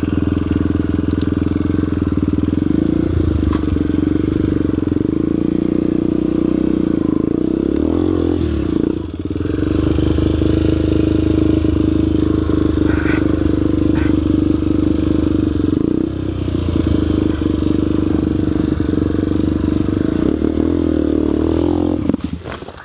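Trail motorcycle's single-cylinder four-stroke engine running steadily under throttle along a dirt trail, with a brief dip in revs about nine seconds in. It goes much quieter just before the end.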